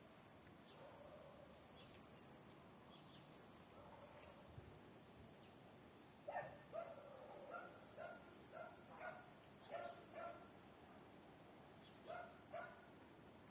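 Faint dog barking: a quick series of short barks starting about halfway through, then two more near the end.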